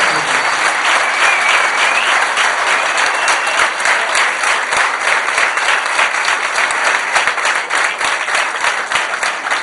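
Large crowd applauding, with dense, steady clapping.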